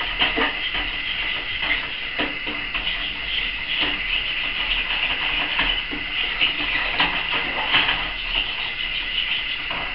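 A utensil scraping and clicking against a stainless steel saucepan in many small, quick strokes, as a thickening milk sauce is stirred constantly to keep it from sticking to the bottom of the pan.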